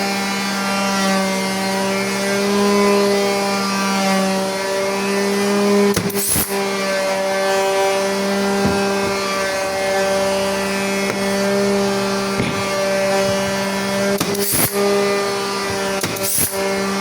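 An electric power tool's motor running at a steady pitch, with a few sharp clicks partway through and near the end.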